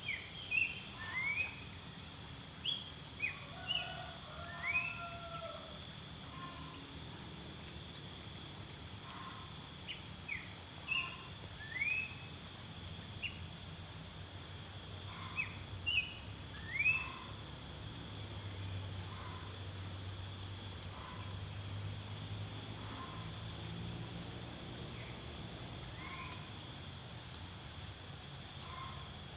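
A wild bird calling in short, quick upward chirps, several at a time, with pauses of a few seconds between bunches. A steady high insect drone runs underneath.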